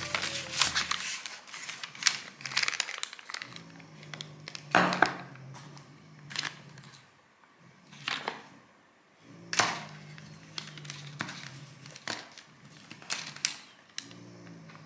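Long paper receipts rustling and crinkling as they are unfolded and smoothed out by hand, in irregular bursts of sharp rustles with short quiet gaps.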